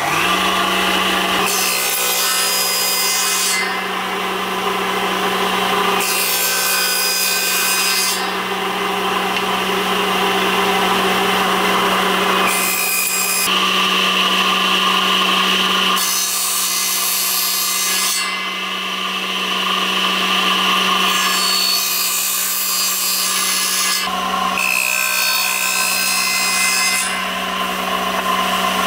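Electric power tool cutting or smoothing wood: its motor runs steadily with a constant hum, and the cutting noise swells and drops in repeated passes every few seconds.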